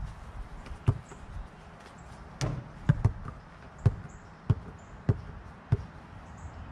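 A basketball bouncing on bare dirt ground: a series of dull thuds, the later ones coming at a steady dribbling pace of a little under two a second.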